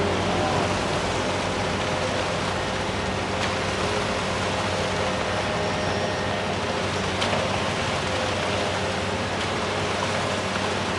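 Machinery engine running steadily with a low hum under a constant hiss, with two faint clicks in the middle.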